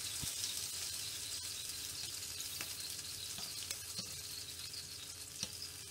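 Gyoza sizzling as they fry in a frying pan, a steady hiss, with a few light clicks of tongs against the pan as they are turned.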